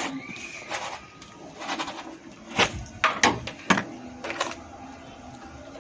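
A series of sharp clicks and knocks, about seven spread unevenly over a few seconds, from handling at a dishwasher as detergent powder is being put in.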